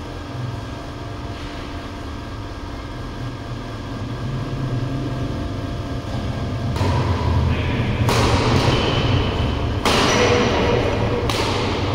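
A steady low hum, then from about halfway repeated bursts of noise with thuds, typical of play on an indoor badminton court.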